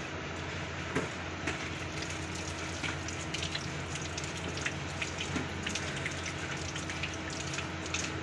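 Live tilapia and carp stirring in shallow water in a plastic tub, making scattered small splashes and drips over a steady low hum.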